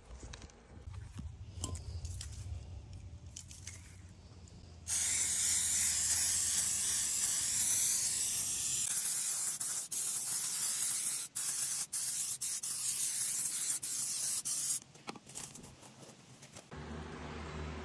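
Aerosol spray can hissing in one long burst of about ten seconds with a few brief breaks, a waterproofing spray going onto fabric horse boots. Faint handling rustles come before it.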